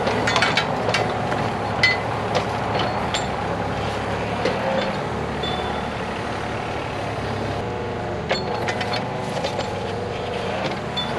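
An engine running steadily, with scattered sharp knocks and clinks over it, thickest in the first few seconds and again about eight seconds in.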